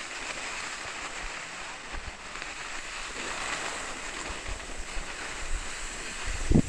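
Skis hissing steadily over groomed snow on a downhill run, with wind buffeting the microphone in low rumbles; a short, loud low thump near the end.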